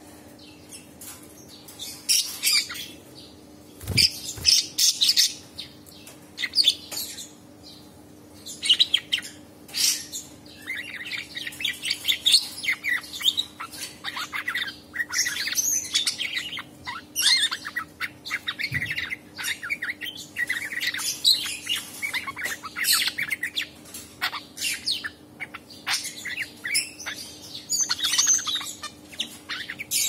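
Budgerigar chattering and warbling in quick runs of chirps and squeaky notes. The runs come in short bouts at first and are nearly continuous in the second half, over a faint steady hum.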